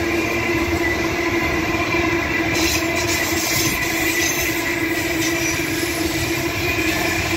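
Container freight train wagons rolling past at close range: a steady rumble and rattle of wheels on rail, with a steady whine held over it.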